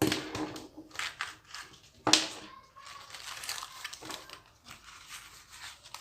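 Rustling and scraping as a soft leather microphone pouch is opened and handled, with sharp crinkling sounds at the start and about two seconds in.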